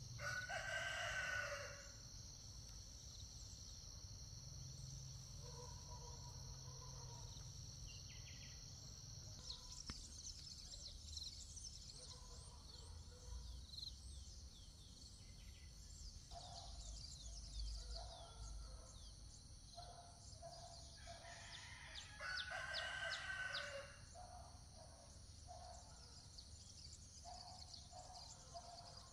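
A rooster crows twice, once right at the start and again about 22 seconds in, over a steady high-pitched insect drone and scattered bird chirps.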